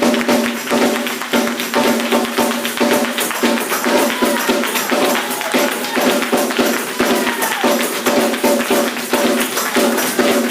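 Church congregation clapping in a fast steady rhythm with a tambourine, over held musical chords, with voices calling out now and then.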